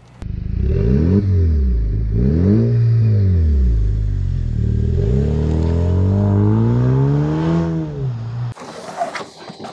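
A 2019 Jeep Wrangler JL's 2.0-litre turbo four-cylinder engine running through an aFe Power stainless-steel cat-back exhaust. The engine speed climbs and falls three times, the last a long climb, and the sound cuts off suddenly near the end.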